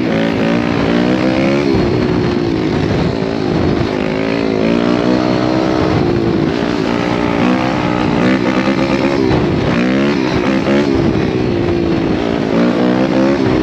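A 190cc pit bike's single-cylinder four-stroke engine runs hard under the rider. Its pitch rises and drops again several times as the throttle is rolled on and off.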